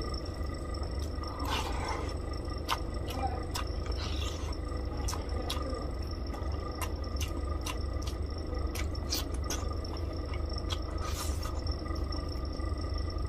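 Close-miked hand-eating of rice and fish curry: fingers squishing and mixing rice in the gravy, then a handful taken into the mouth and chewed, with many small wet clicks and smacks. A steady low hum lies underneath.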